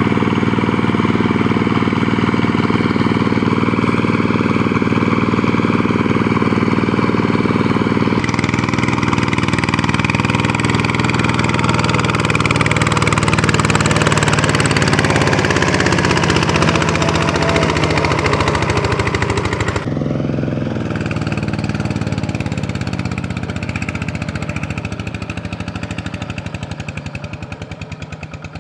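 Single-cylinder Kubota RV125 diesel engine of a two-wheel walking tractor running steadily under load in deep mud, with a fast, even firing beat. It grows fainter over the last several seconds.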